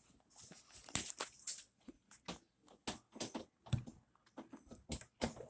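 Irregular knocks, clicks and rustling of someone reaching behind a refrigerator and plugging its power cord back into the wall socket.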